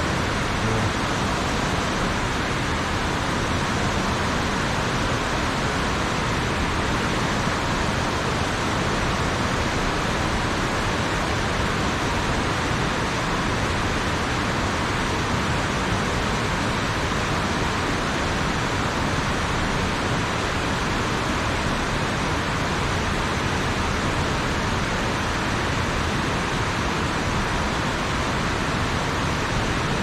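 Loud, steady rushing of strong-flowing water from a small river cascade, an even noise with no breaks.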